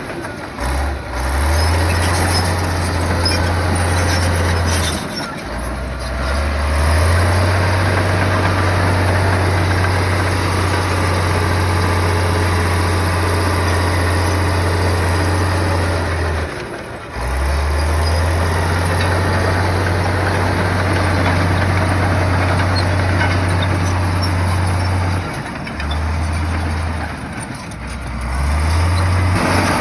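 Heavy diesel engine of an earthmoving machine running hard: a steady low drone whose revs drop briefly and climb back a few times as the load changes.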